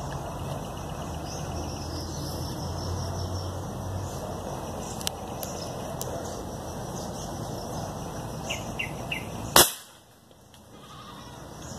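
Airgun firing once: a single sharp crack about nine and a half seconds in, over steady outdoor background noise.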